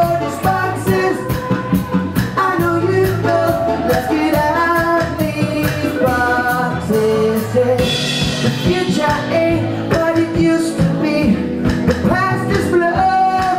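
Live band music: a man singing into a microphone over electric bass and drum kit, with steady drum hits and a cymbal wash a little past the middle.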